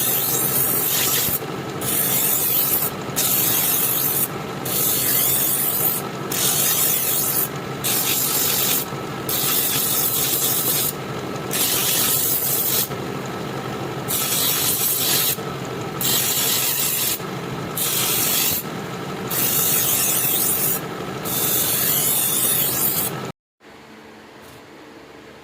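Steel knife blade being worked by hand with an abrasive, sanding or filing in long, regular strokes about one every second and a half, over a steady hum. The strokes stop suddenly near the end.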